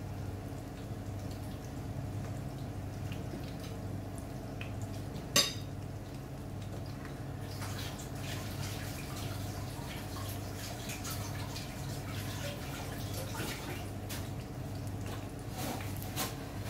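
Breaded fish fillets shallow-frying in hot oil in a frying pan: scattered sizzling pops and crackles that grow busier in the second half, with one sharp click about five seconds in, over a steady low hum.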